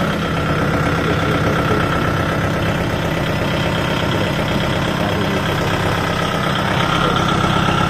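Kubota MU5502 tractor's four-cylinder diesel engine idling steadily with an even low chug.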